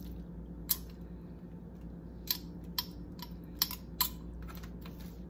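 Plastic spice jar of ground ginger being shaken and tapped over an oven bag of seafood, giving a series of sharp, irregular clicks.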